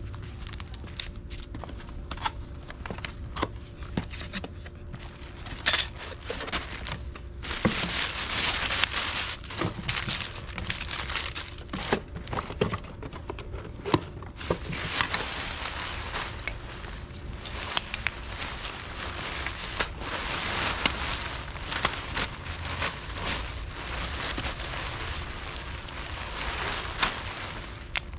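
Packaging crinkling and rustling as it is handled and opened, with many scattered clicks and knocks; it gets louder and busier from about seven seconds in.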